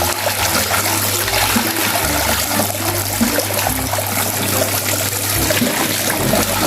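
Running water pouring and splashing steadily over a toy sand truck, washing the sand off it.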